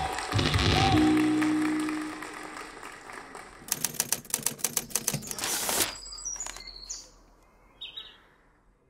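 A music sting fades out in the first two seconds, then a rapid run of typewriter key clicks lasts about two seconds, followed by a few short high bird chirps.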